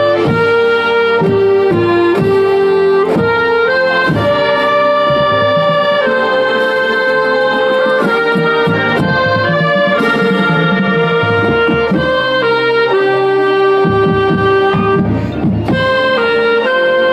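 Marching band playing a tune, heard from inside the band: a reed woodwind right at the microphone is loudest, holding melody notes that change every half second or so, over brass and drum strokes.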